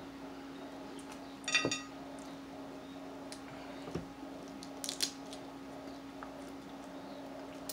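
Snow crab legs being cracked and picked apart by hand: a few sharp snaps and clicks of shell, the loudest with a brief ringing clink about a second and a half in, along with wet squishing. A steady low hum runs underneath.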